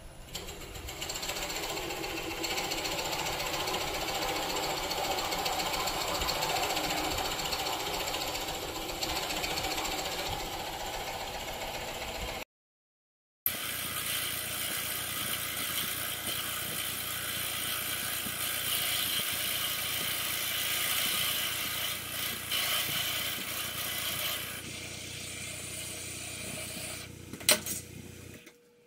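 Wood lathe spinning an off-balance rectangular Nargusta blank at about 450 RPM while a carbide tool hollows its end face: a steady rattling chatter of an interrupted cut, tool on wood. The sound breaks off for about a second midway, and there is one sharp click near the end.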